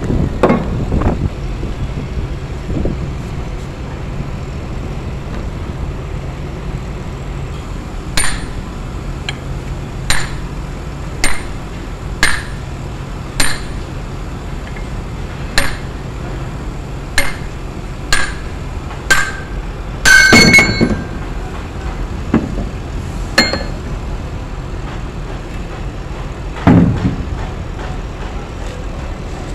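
Hammer striking steel in a series of sharp, ringing blows about one a second, dismantling a Kenter shackle by driving out its tapered locking pin. A louder, longer clang comes about twenty seconds in, and one last blow near the end.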